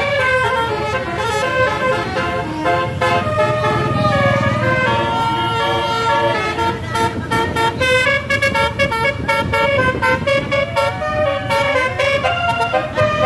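Bus telolet horns sounding melodic multi-tone toots, several notes at once changing in steps, over the low running of vehicle engines.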